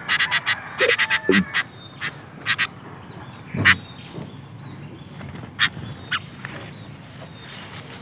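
Clicks, taps and rustles as a tethered sooty-headed bulbul is handled on a dry branch perch. A quick run of clicks comes in the first two seconds, then a few single taps spread through the rest.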